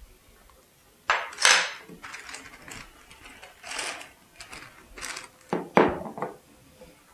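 Plastic zipper storage bag crinkling and rustling as it is handled and chopped squash is tipped into it from a glass cup. It comes as a string of short bursts starting about a second in.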